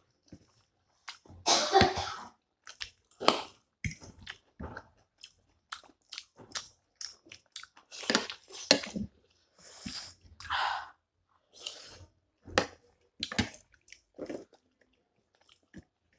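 Close, wet mouth sounds of eating hot momo dumplings in thick soup: chewing and slurping in short, irregular snatches, with breaths blown to cool the hot food.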